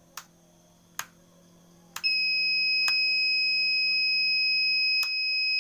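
Sharp clicks of a radio-control transmitter switch being flipped, and about two seconds in a lost-model alarm buzzer on the receiver starts a steady, high-pitched, continuous beep. More switch clicks sound over it.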